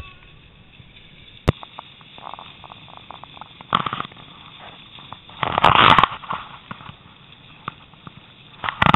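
A wooden sled's runners scraping and crunching over packed snow while it is towed by a dog, heard from on the sled. There are crackling bursts of noise, loudest about six seconds in, a sharp knock about one and a half seconds in, and more crackling and clicks near the end.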